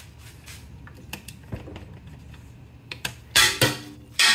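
Small plastic clicks and snaps as the plastic housing is unclipped and lifted off a central vacuum's motor, then loud clattering knocks near the end.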